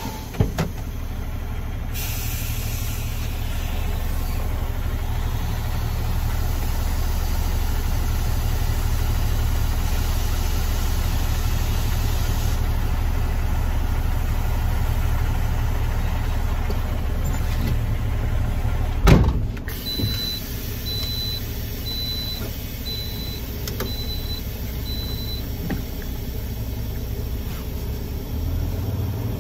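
Semi truck's diesel engine running, heard from inside the cab, with wind buffeting the truck. About two-thirds through there is a sharp knock, after which the engine rumble eases and a high beep repeats about once a second for several seconds, and again near the end.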